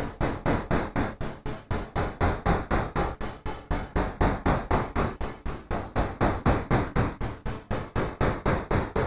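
Arturia Mini V3 software synthesizer playing a sequenced noise patch: a steady stream of short noise hits, about four to five a second, each dying away quickly, with low notes underneath.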